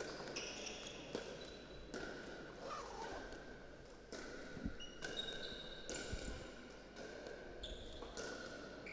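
Pickleball paddles striking the plastic ball in a rally at the net, a quiet pop every half second to a second, with sneakers squeaking on the court floor between hits.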